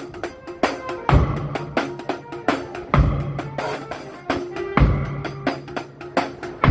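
Drum kit playing a reggae one-drop groove: the kick drum and snare strike together once a bar, about every two seconds, each hit leaving a low ring, with quicker hi-hat ticks between.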